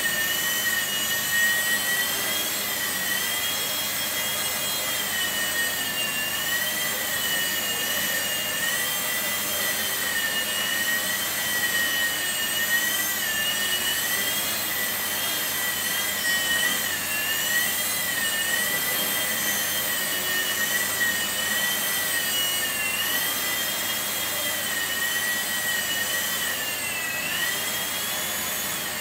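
Blade mSR micro RC helicopter flying: a high electric motor and rotor whine whose pitch wavers up and down continually as the throttle shifts, over a steady airy hiss.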